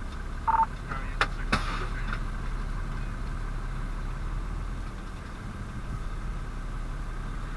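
A 1996 Spartan/Darley fire engine's diesel idling steadily, heard from inside the cab as a low rumble. A short beep sounds about half a second in, and two sharp clicks follow about a second later.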